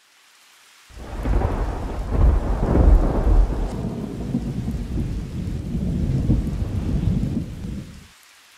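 Thunder rumbling over rain: a long, deep rumble starts about a second in, is loudest a couple of seconds later, and dies away near the end, leaving a faint hiss of rain.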